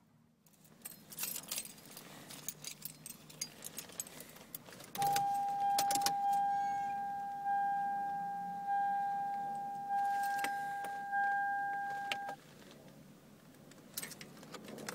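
Car keys jangling and clicking, then the 1997 Toyota Corolla's dashboard warning chime sounding a steady ding about once every second and a quarter for some seven seconds before it stops. Keys rattle again near the end as the ignition is turned and the stereo powers on.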